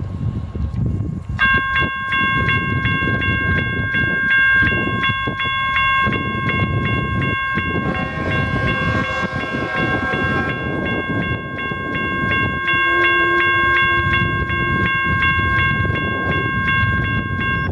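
CSX intermodal train approaching slowly, its diesel locomotives rumbling low. A grade-crossing bell starts ringing about a second and a half in and keeps ringing steadily, and the locomotive's horn sounds one long blast around the middle.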